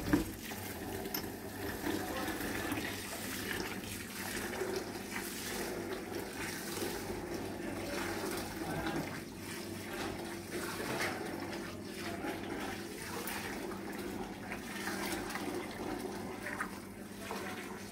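Running water, a steady rushing splash.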